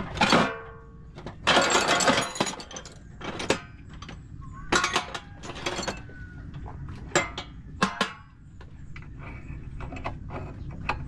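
Hard objects, likely metal tools and engine parts being handled, clanking and clinking in a string of separate knocks, with a longer clattering rattle about a second and a half in.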